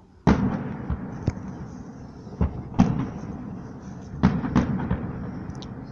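Aerial firework shells bursting in a series of booms, about eight in the space of five seconds, each trailing off in a rolling echo. The loudest comes just after the start.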